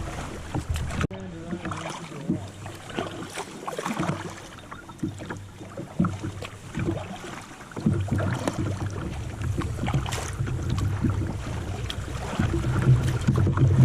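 Kayak paddling on a river: paddle strokes splashing and knocking, with a low rushing noise that grows louder about eight seconds in.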